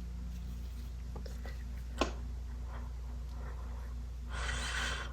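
Paintbrush working acrylic paint on paper: faint strokes, a sharp tap about two seconds in, and a short scratchy scrubbing near the end, over a steady low hum.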